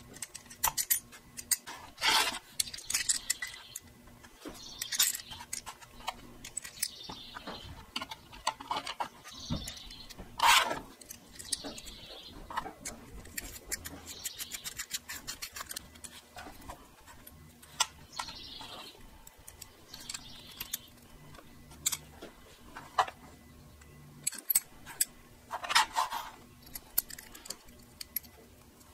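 Small steel parts of a Pfaff 1245 thread tension assembly clicking and clinking as they are handled and fitted together by hand: tension discs and spring going onto the stud, with light metal-on-metal scraping. Irregular small ticks throughout, with a few louder clicks about two, ten and twenty-six seconds in.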